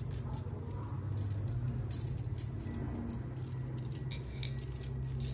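Thin steel bicycle spokes clinking and jangling against one another as a bunch of them, threaded through a bicycle hub's flange, is gathered in the hand; irregular light clicks over a steady low hum.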